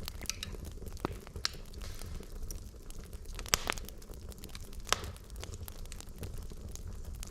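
Wood fire in a fireplace burning, with a steady low rumble and irregular sharp crackles and pops from the burning logs, two of them louder, about three and a half and five seconds in.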